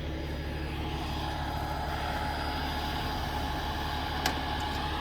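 Tow truck's engine idling steadily, with a single sharp click about four seconds in.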